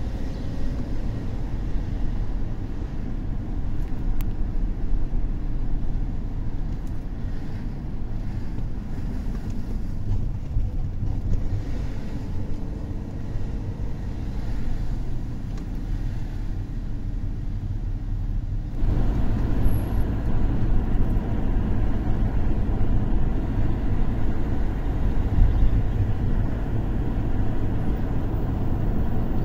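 A Mercedes-Benz car driving along a street: a steady rumble of engine and tyre noise, which gets louder and rougher about two-thirds of the way through.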